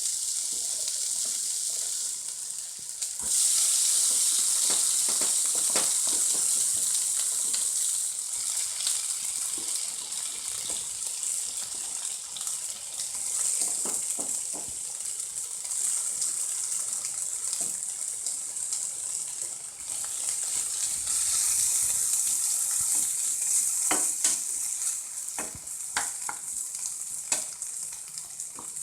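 Chopped onion, capsicum and tomato sizzling in hot coconut oil in a pan, with a steady hiss that grows louder about three seconds in. A spoon stirring clicks against the pan now and then.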